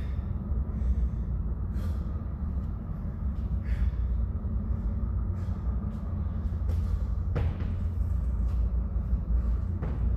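Steady low rumble with a person's heavy breathing between exertions, and a few short knocks, the last as he kicks up into a handstand against the wall.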